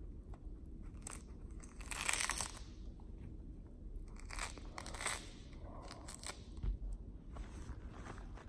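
Grapefruit peel being torn away from the fruit by hand: a handful of short tearing, crunching bursts, the loudest about two seconds in, with more around four to six seconds.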